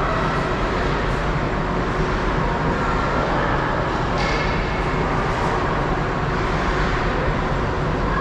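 Steady ice hockey rink din during play, an even wash of noise with a few faint short tones on top and no single standout event.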